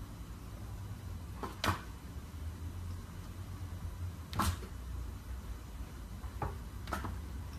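A handful of short, sharp taps and knocks on window glass, about five, two of them louder, over a steady low rumble.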